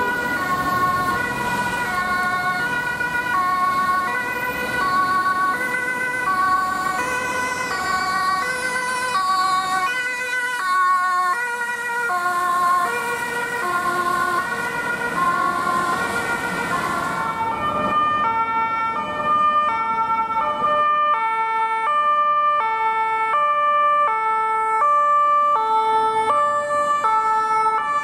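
Swiss two-tone emergency siren, a high note and a low note alternating about once a second, from a Zürich city police van. About two-thirds of the way in it gives way to a Schutz & Rettung ambulance's two-tone siren, with lower, cleaner notes.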